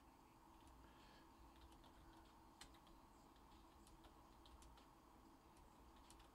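Faint typing on a computer keyboard: scattered, irregular keystroke clicks over quiet room tone, one a little louder about two and a half seconds in.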